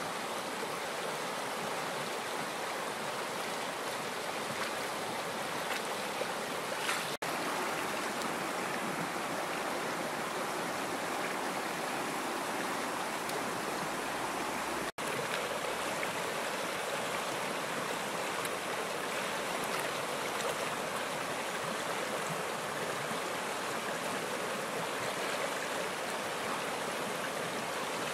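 A fast-flowing river rushing steadily over rapids. The sound breaks off for an instant twice, about 7 and 15 seconds in.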